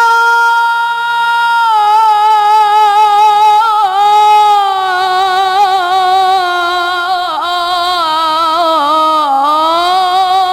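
A child's high voice singing one long, unbroken note of an Islamic devotional chant (nasheed) with no instruments heard. The note is held steady at first, then ornamented with quick wavers while its pitch slowly sinks, with dips near seven and a half and nine and a half seconds before it rises again at the end.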